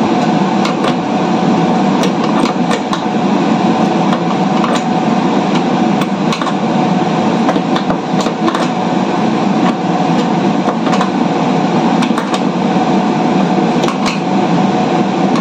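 Steady loud machinery hum with one held mid-pitched tone, under irregular light metal clicks and taps of a hand wrench working the bolts of a caster wheel.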